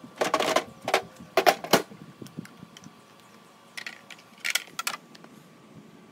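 Sharp plastic clicks and knocks from a Makita track saw being lifted out of its hard plastic carry case and set down: a quick cluster in the first two seconds, then a couple more about four seconds in.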